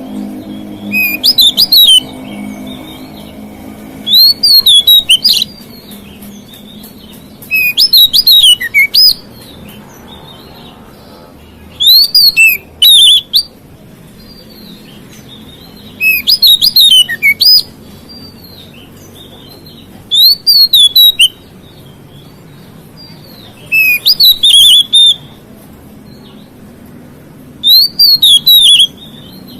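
Oriental magpie-robin (kacer) singing loud, short phrases of quick rising and falling notes, eight phrases about every four seconds.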